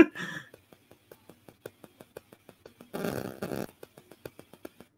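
Glitching video-call audio: a steady train of faint clicks, about four a second, with a brief buzzy, garbled burst about three seconds in, the sign of a troubled call connection.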